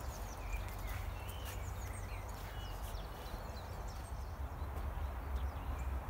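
Several small birds chirping and whistling in short, varied notes, over a steady low rumble of wind on the microphone.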